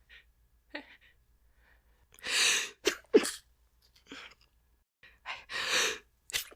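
A woman stifling allergy sneezes: a rushing in-breath, then a short, pinched, held-back sneeze about three seconds in, and the same build-up and sneeze again near the end.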